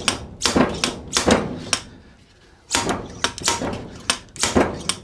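Slide hammer on a brake-piston puller being struck repeatedly: about ten sharp metal knocks, roughly two a second, with a short pause near the middle. It is hammering at a stuck piston in a Yamaha blue spot brake caliper that has not yet come free.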